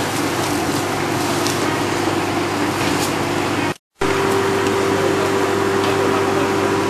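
Steady hum from a JR East 717 series electric train standing at the platform with its doors open, a constant tone running through it, over the general noise of the station. The sound drops out completely for a moment just under four seconds in, then the hum carries on with its tone stronger.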